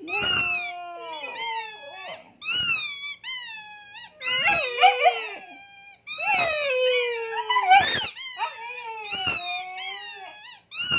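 Siberian huskies whining and vocalising in a string of short, high calls, each rising and then falling in pitch, with two voices overlapping at times.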